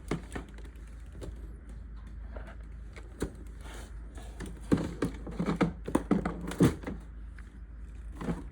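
Irregular plastic clicks and knocks of a robot vacuum being handled and set back down, with a cluster of louder knocks about five to seven seconds in, over a low steady hum.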